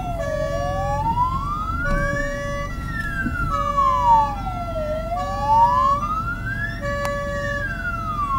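Ambulance siren in a slow wail, rising and falling about every four and a half seconds, with a second steady two-note tone stepping on and off beneath it. Low road rumble runs underneath.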